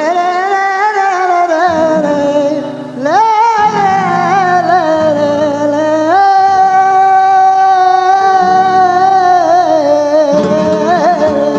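Male flamenco singer singing fandangos, drawing out long melismatic lines with wavering ornaments, a rising slide about three seconds in and a long held note in the middle, over flamenco guitar accompaniment.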